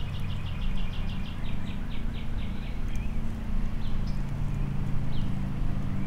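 Lawn mower engine running steadily. A bird sings over it: a rapid trill of short high notes, about five a second, ending about two and a half seconds in, then a few single chirps.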